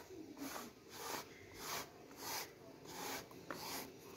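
Lint roller rolled back and forth over black cloth to pick up cat hair: a rubbing stroke about twice a second.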